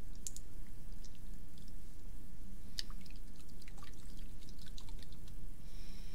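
Bottle of hot sauce being shaken, the thick sauce sloshing inside with faint, irregular small clicks and splashes.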